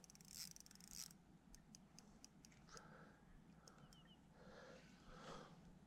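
Near silence, with a faint hiss in the first second and a few faint, scattered clicks after it.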